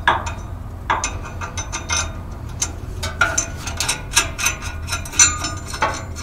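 Metal clicks, clinks and light scraping as a small bolted steel bracket is fitted and adjusted by hand on the exhaust pipe under a van. Sharp clicks come irregularly every fraction of a second, some with a short metallic ring.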